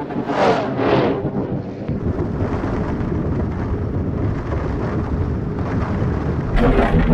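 A deep, steady rumble that grows louder with sharp crackling about six and a half seconds in.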